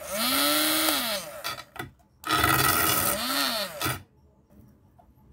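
Small DC motor of a homemade cardboard toy car running in two short bursts of one to two seconds each, a whirring whine that rises in pitch as it spins up and falls as it winds down. The car is held up, so the wheels spin freely with no load.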